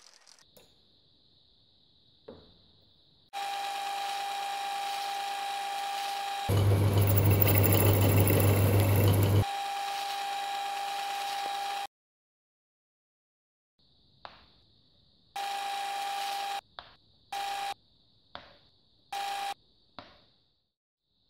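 Hercus metal lathe running with a steady gear whine while turning the steel body of a lantern chuck, much louder and harsher for about three seconds in the middle. It stops abruptly, then the same whine comes back in three short bursts.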